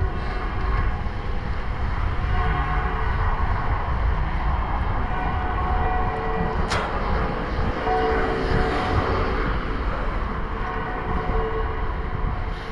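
Wind buffeting the microphone and tyres hissing on wet asphalt as a road bike rolls downhill, with one sharp click about seven seconds in.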